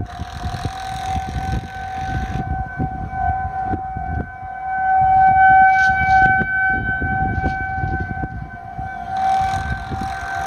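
Outdoor tornado warning siren sounding one steady, held tone, growing louder about halfway through and then easing back.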